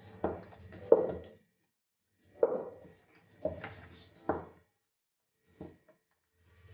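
Wooden rolling pin rolling dough out on a rolling board: about six short rolling strokes and knocks with pauses between.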